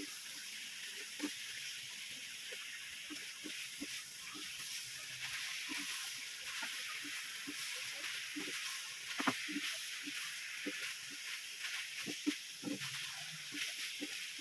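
Pork chunks sizzling as they brown in a metal pan, a steady frying hiss, while a wooden spatula stirs them with irregular soft knocks and scrapes against the pan, one sharper knock about nine seconds in.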